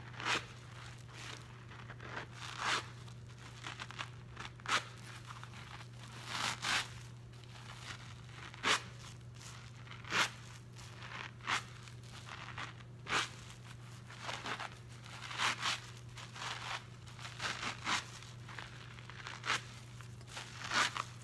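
A soap-soaked cellulose scrub sponge with a green scouring pad being squeezed and pulled apart by hand in thick dish-soap suds: irregular wet squelches and crackling foam, a burst every second or so.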